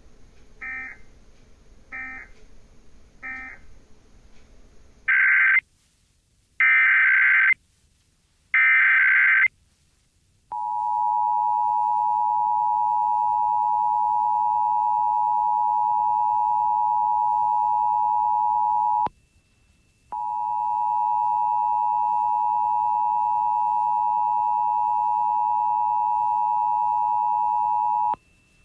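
Emergency Alert System data and alert tones: three faint short end-of-message data bursts, then three loud screeching SAME header data bursts of about a second each. Then comes the steady two-tone EAS attention signal, which drops out for about a second partway through, resumes, and stops shortly before the end.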